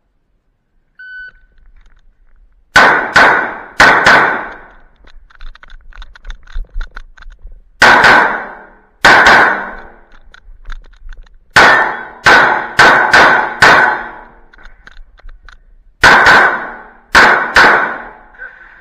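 A short electronic shot-timer beep about a second in, then about a dozen pistol shots from a CZ P-10 C fired in quick groups of two to five with pauses between, each ringing on in the covered range.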